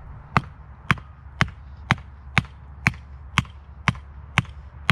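Small sledgehammer striking a galvanized steel Dig Defence animal barrier, driving it into the ground: ten sharp, even blows, about two a second. The uploader believes a buried rock is stopping the barrier from going in.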